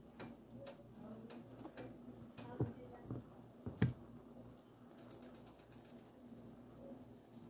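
Wooden spoon stirring and turning cooked jollof rice in a large frying pan: scattered light clicks and scrapes, with a few duller knocks about halfway through, over a steady low hum.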